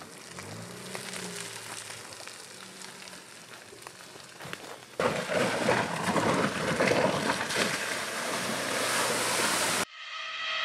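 Land Rover Defender's engine running faintly with a brief small rise in pitch as it crawls down a dirt track. About halfway through, a louder, even rushing noise takes over as it drives along a muddy, water-filled rut. This cuts off suddenly just before the end, when music comes in.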